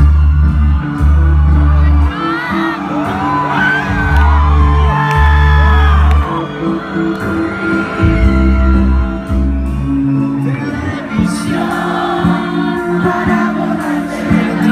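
A rock band playing live through a loud PA, with a singer, crowd members whooping and shouting over it. Deep bass notes are held in long blocks for the first ten seconds or so, then drums come in with sharp hits.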